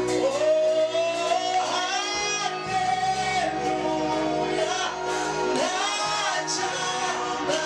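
Live gospel worship music: a man singing into a microphone, his voice gliding between long held notes, over guitar and steady sustained chords from the band.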